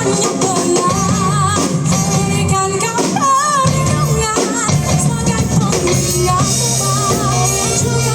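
A band playing a song: a singer holds wavering, vibrato notes over bass and drums.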